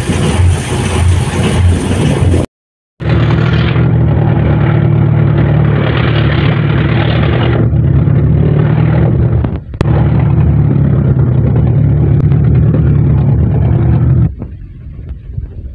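A boat's diesel engine running steadily at speed, close by, with wind and rushing water loud at first. The sound cuts out for a moment, then the engine holds an even drone until it drops suddenly to a much quieter level near the end.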